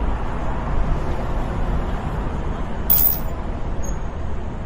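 City traffic ambience sound effect: a steady low rumble of road traffic, with one short sharp high click about three seconds in.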